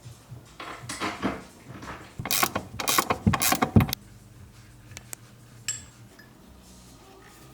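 Ratchet wrench clicking in quick runs as roll-cage bolts are tightened, loudest and fastest from about two to four seconds in, then a few scattered clicks.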